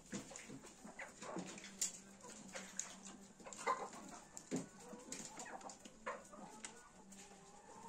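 Faint farm animal calls with scattered short knocks and rustles.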